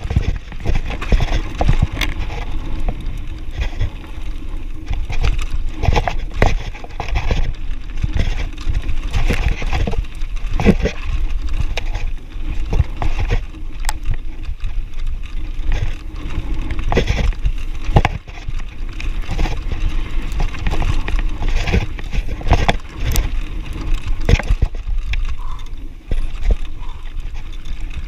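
Mountain bike riding fast down a rocky gravel trail: tyres crunching over loose stones and the bike rattling, with frequent sharp knocks from rock hits, over a steady rumble of wind on the microphone.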